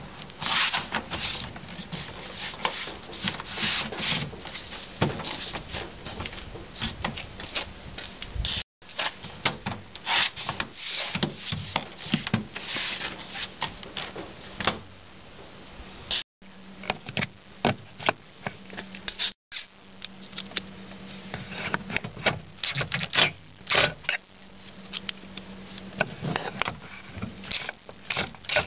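Car door parts being handled and fitted: an irregular run of small clicks, taps and rubbing of plastic and metal, over a faint steady low hum. The sound drops out briefly three times.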